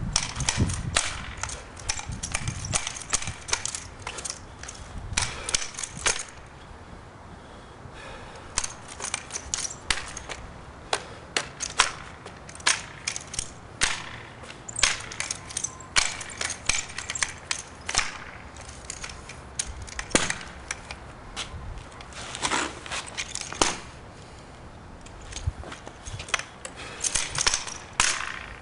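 Color guard drill rifle being spun, tossed and caught: sharp slaps and clacks of hands striking the rifle, coming irregularly and often several in quick succession, with a couple of short pauses.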